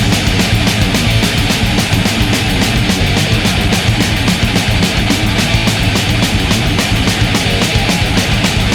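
Loud, fast rock music with a rapid, steady drum beat.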